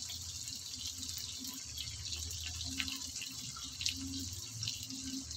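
Sliced onions and fresh curry leaves sizzling in hot oil in a small steel pan: a steady hiss with scattered little pops and crackles.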